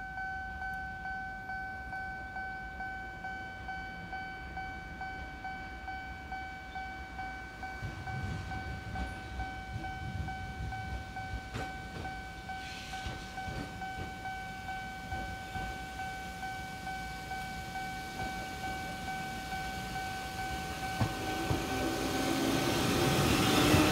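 Japanese level-crossing warning bell ringing steadily in an even, repeating ding, while a single-car Eizan Electric Railway 700 series electric train approaches. The train's wheels and motors on the rails grow much louder over the last few seconds.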